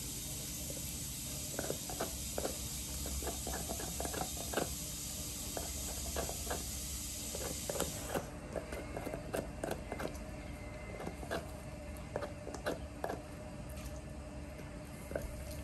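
Doberman gnawing on a big bone: irregular crunching and scraping clicks of teeth on bone, over a steady hiss that drops away about eight seconds in.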